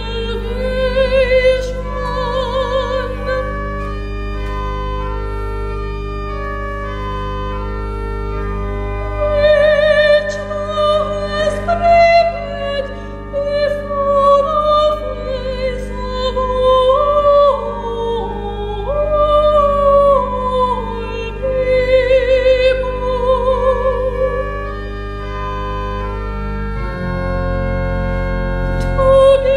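A woman singing a solo in a classical style with strong vibrato, over sustained organ chords.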